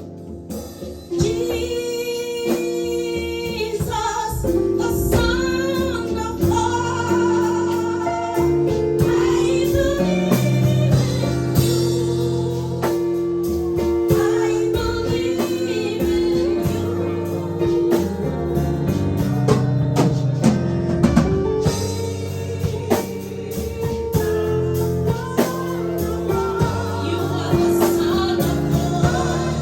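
Live gospel worship music: singing that rises and falls over a band with long sustained low notes and drums.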